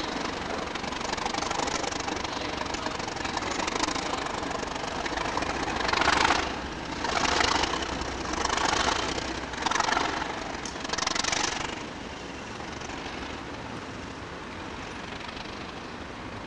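Two Class 37 diesel locomotives running, their English Electric V12 engines giving a steady hum and putting out visible exhaust smoke. Midway through, five louder surges of noise come about a second or so apart.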